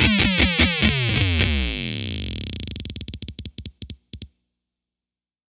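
Electric guitar through an EarthQuaker Devices Data Corrupter harmonizer pedal, giving a fuzzy, synth-like tone with rapid, repeated falling pitch sweeps. As the note fades, the pedal's tracking loses hold and the sound breaks into stuttering pulses that thin out and cut off about four seconds in.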